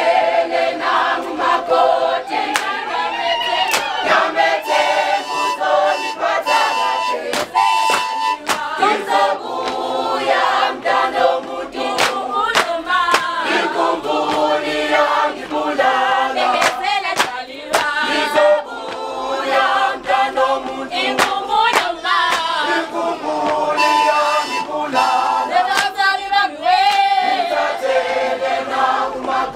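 A group singing Zulu traditional songs in chorus, unaccompanied, with sharp beats running through the singing.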